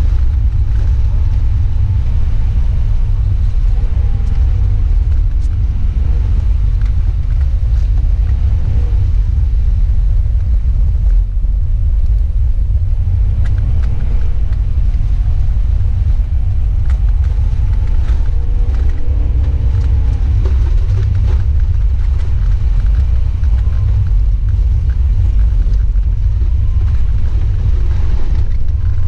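A car's engine and road noise heard from inside the cabin while driving: a steady deep rumble, with the engine note rising and falling as the car speeds up and slows.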